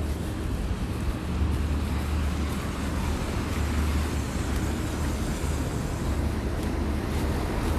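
Steady city street traffic noise: vehicles running on a snowy downtown road, with a constant low rumble underneath.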